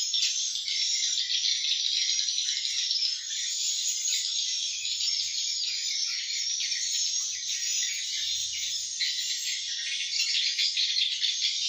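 Swiftlet calling sound: a dense, continuous chorus of high-pitched swiftlet twittering and chirping, the lure call used to draw swiftlets to roost and nest in a swiftlet house.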